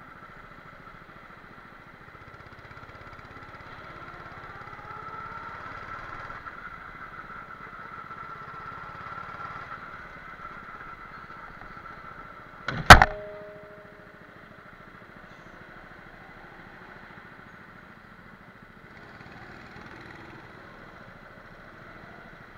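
Go-kart running at an even note that grows somewhat louder between about 4 and 10 seconds in. About 13 seconds in there is a single sharp, loud metallic bang with a brief ring.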